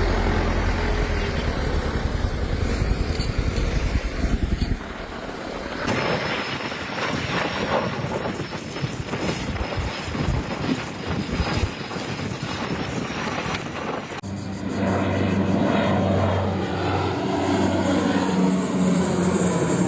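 Several cuts of outdoor wildfire footage: first a low rumble, then a stretch of dense crackling noise. From about two-thirds of the way in, a propeller aircraft passes low overhead, its engine drone sliding down in pitch as it goes.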